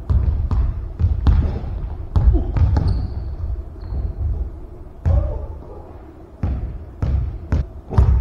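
Basketball dribbled on a hardwood gym floor: irregular bounces, echoing in the hall, coming faster near the end. A couple of short high squeaks about three and four seconds in, and a few voices.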